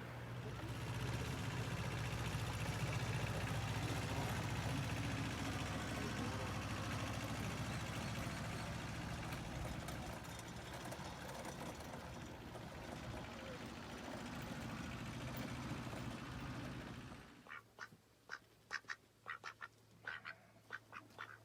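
A steady low rumble with a hum, like a moving vehicle, for most of the time. It drops away sharply near the end, and a run of short, quick animal calls follows.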